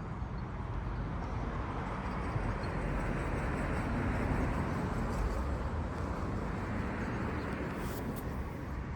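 A vehicle passing by: a steady rushing noise that swells to a peak about halfway through and then fades, over a low rumble.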